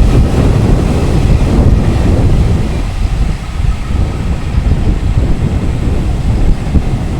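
Wind buffeting the microphone, a loud, fluctuating low rumble with a brief dip about three seconds in.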